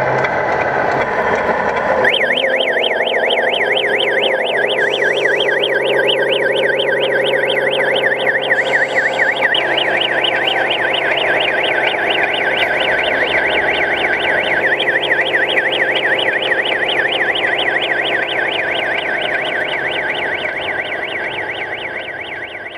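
Electronic warbling siren, from an RC truck's sound module, sweeping rapidly up and down several times a second over a steady diesel engine hum. The siren starts about two seconds in, and everything fades out near the end.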